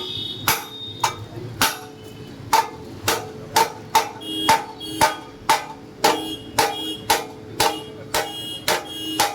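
Steady hammering on metal, about two blows a second, each blow leaving a brief metallic ring.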